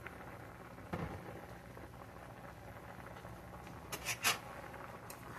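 Saucepan of green beans at a rolling boil, bubbling steadily. A dull knock about a second in, and a quick clatter of three or four sharp clicks about four seconds in, the loudest sound.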